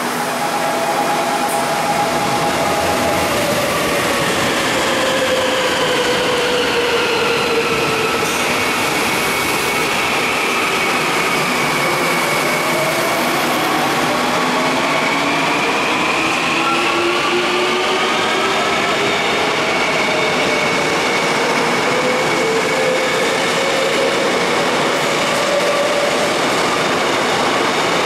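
Seoul Metro Line 3 ten-car electric train running along the platform, steady wheel and rail noise with its traction motors whining in tones that glide down and then back up in pitch.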